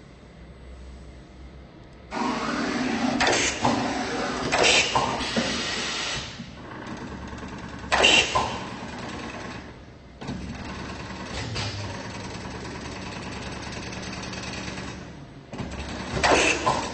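WT11 automatic steel rule bending machine running, its feed and bending head making a continuous mechanical whirr. Sharp knocks come from the bending tooling a few times, and a steadier hum runs between them.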